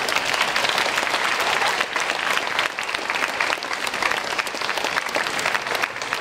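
A large audience of students applauding: dense clapping from many hands that holds steady and eases slightly near the end.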